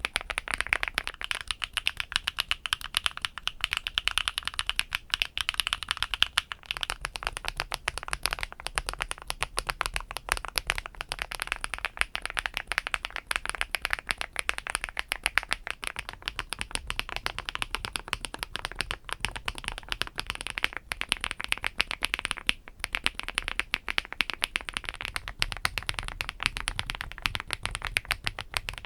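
Fast, continuous typing on a mechanical keyboard with HMX Pado V2 (Canglan V2) switches: a dense, steady clatter of keystrokes. The board changes partway through, from an aluminium-housing keyboard to a PC plate about seven seconds in, a POM/PP plate about sixteen seconds in, and an FR4 plate about twenty-five seconds in, each giving the clack a slightly different tone.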